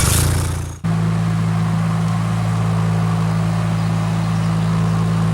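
Compact track loader's diesel engine running at a steady speed, a constant low drone. Less than a second in, a louder, noisier sound cuts off abruptly and the drone takes over.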